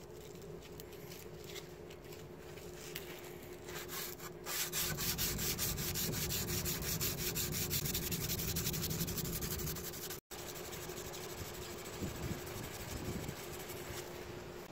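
Steel knife blade clamped in a vise being hand-sanded with quick, rhythmic back-and-forth strokes. The rubbing grows louder about four seconds in and eases after a brief break near ten seconds.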